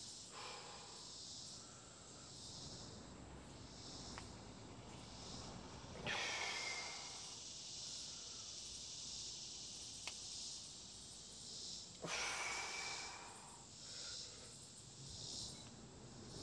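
A man breathing hard through a set of bodyweight pistol squats, with two louder, forceful exhales about six seconds apart.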